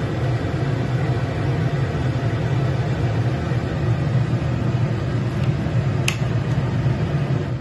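Sakura R3500DL kitchen range hood's exhaust fan running: a steady, loud rush of air over a low hum. A single sharp click of its control knob comes about six seconds in.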